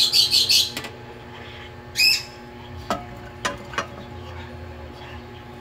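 A bird chirps a quick run of high calls at the start and one more about two seconds in. A few light clicks follow as sliced kamias drop from a bowl into a metal cooking pot, over a steady low hum.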